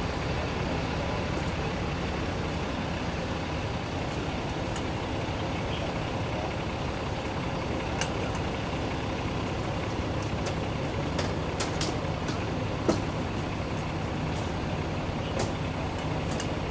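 Emergency vehicles' diesel engines idling: a steady low rumble, with a few sharp clicks and knocks over it, the loudest about thirteen seconds in.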